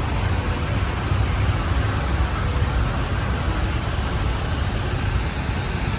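Steady rushing noise with a heavy low rumble from a moving car: road and wind noise.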